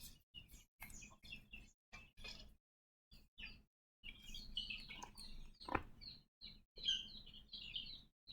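Faint birds chirping in the background, many short high chirps in the second half, with a few faint clicks in the first couple of seconds.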